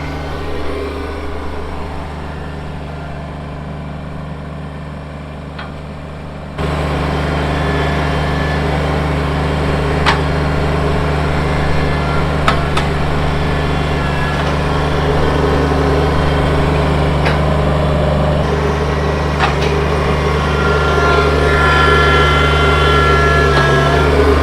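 Kubota BX23S tractor's three-cylinder diesel engine running steadily at high throttle, about 3,000 rpm, while the backhoe digs. A few sharp knocks come through. The sound gets suddenly louder about six and a half seconds in.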